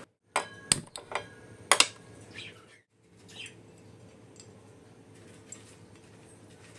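Four sharp metallic clicks and knocks at a gas stove with an iron tawa on the burner, then a faint steady hum with a few soft ticks as the gas burns under the pan.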